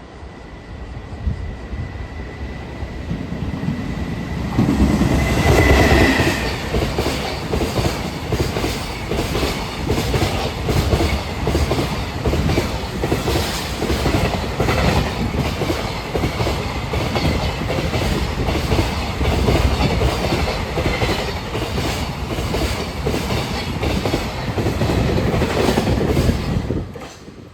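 A JR Freight EF210 electric locomotive hauling a container freight train past. The sound swells to its loudest as the locomotive goes by about five seconds in, then becomes a long run of rapid, rhythmic wheel clicks over the rail joints as the container wagons pass, and cuts off near the end as the last wagon clears. A steady high tone sounds under the approach and fades as the locomotive arrives.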